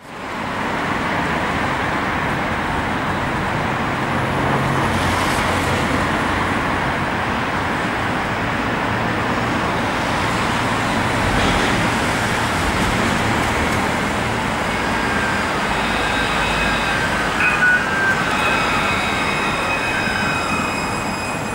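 Steady city street traffic noise, with an Alstom Citadis C Class tram pulling in to the stop over the last several seconds, bringing a few high thin whines, some falling slightly in pitch.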